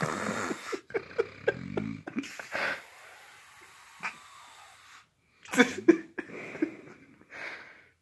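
A sleeping man snoring and snorting: a quick run of short, sharp snorts, then irregular noisy breaths with a low buzzing snore, broken off abruptly a few times.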